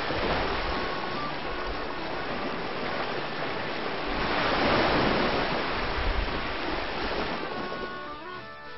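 A steady rushing noise, swelling to its loudest about halfway through, with faint background music underneath that comes forward near the end.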